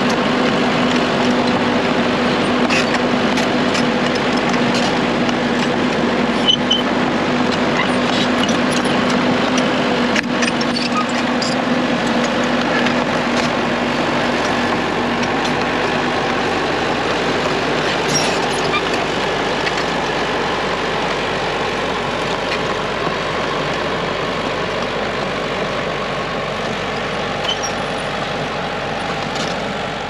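Komatsu PC78US compact crawler excavator's diesel engine running steadily, a constant hum with a few scattered clicks. It gets gradually quieter toward the end.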